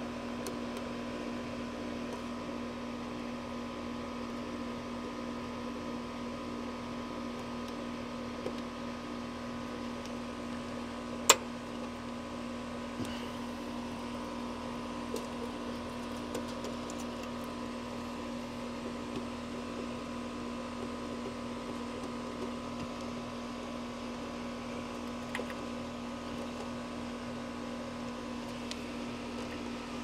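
Steady machine hum, with a few light ticks and one sharp click about eleven seconds in from hand work on wire terminals at an air conditioner's new contactor.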